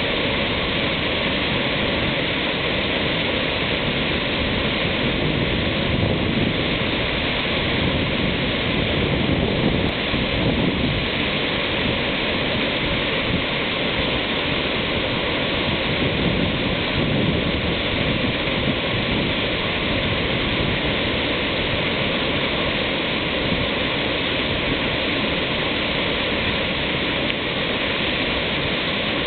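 Waterfall running in full spate after heavy rain: a steady, unbroken rush of falling water.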